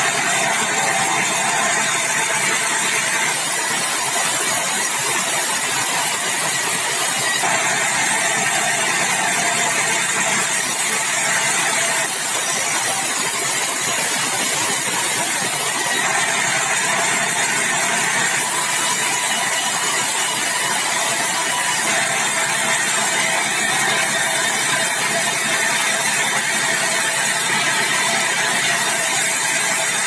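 Sawmill band saw ripping keruing hardwood into long boards: the blade runs steadily through the timber with the mill's drive running underneath, a loud, dense, unbroken noise.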